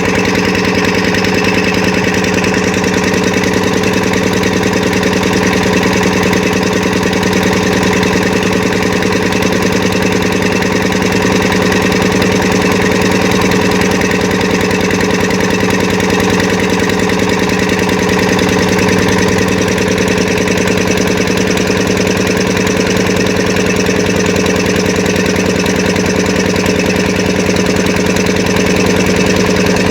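An engine running steadily at a constant speed, a continuous even hum with no change in pitch or level.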